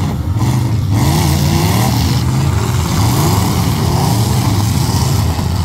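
Several derby trucks' engines revving up and down over one another, loud and continuous.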